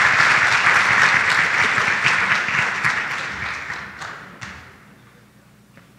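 Audience applauding, the clapping thinning and fading out about five seconds in.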